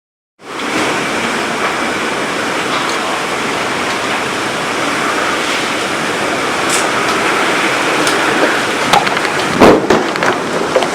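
Heavy wind and rain of a severe thunderstorm, a loud steady rushing that starts abruptly after a moment of silence. A few sharp thumps stand out near the end.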